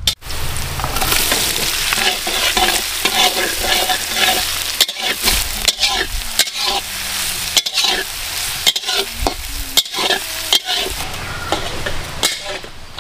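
Chopped onions sizzling in hot mustard oil in a large metal wok while a long metal spatula stirs them. The spatula scrapes and knocks against the pan many times, roughly once a second.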